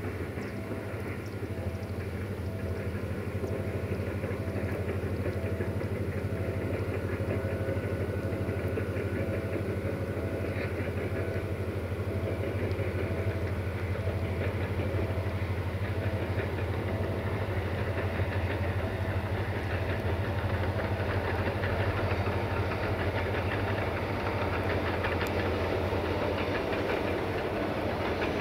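GM diesel locomotive's engine running steadily as the train approaches, growing louder over the first few seconds and then holding level.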